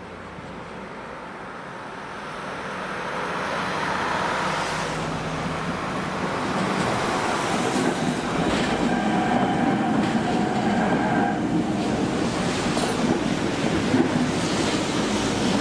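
Matterhorn Gotthard Bahn metre-gauge train approaching, growing louder over the first four seconds, then running past with its wheels clicking over the rail joints.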